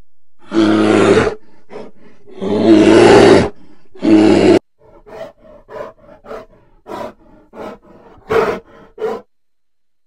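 Bear roaring three times in quick succession, each call deep and loud, then a string of shorter, quieter grunts.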